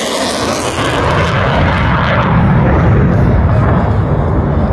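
F-35 Lightning II's single F135 turbofan just after a high-speed low pass: a loud jet roar whose hissing top end fades about a second in, leaving a deep rumble that carries on as the jet flies away.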